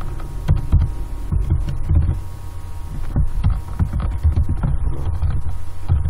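Computer keyboard typing, heard as irregular low thuds and clicks several times a second, over a steady electrical hum.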